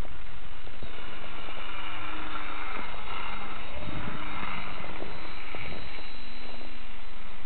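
Small propeller plane flying low overhead, its engine note swelling and shifting in pitch for several seconds as it passes, over a steady rushing noise of wind and vehicle travel.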